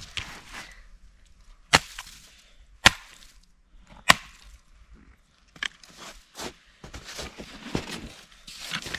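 Three sharp clacks about a second apart from a pair of Yukon Charlies PRO II snowshoes being handled, then softer scuffs, knocks and crunching steps in snow as the snowshoes are carried and hung on a backpack.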